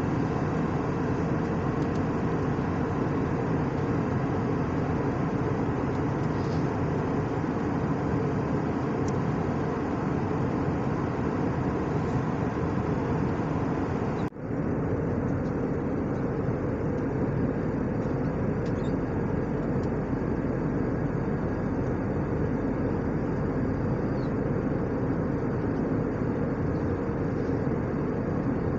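Airbus A319 cabin noise in flight: the steady rush of the jet engines and airflow heard from a window seat. It briefly drops out about halfway through.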